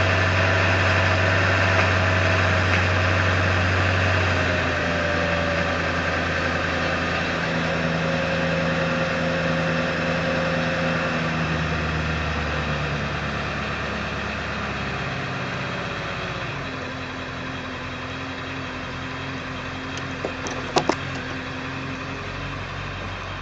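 1999 Ford F-350's 7.3-litre V8 turbo-diesel running in gear at high idle, its pitch and loudness easing down in steps. The owner hears an unexplained knocking from it in gear under power at low rpm. A few sharp clicks come near the end.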